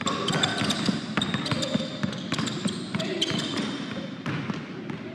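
Basketball dribbled rapidly and low on a hardwood gym floor, with quick, irregular bounces.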